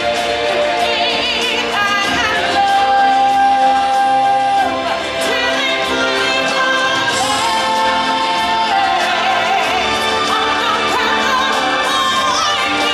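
Music with singing: voices holding long, wavering notes over a full musical backing.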